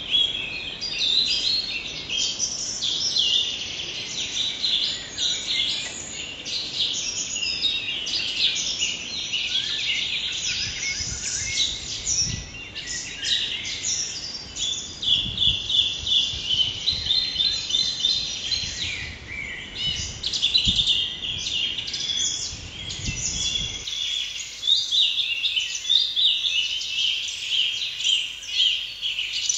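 A dense chorus of birds chirping, many short high calls overlapping without pause. About 24 seconds in, the low background noise beneath them drops away.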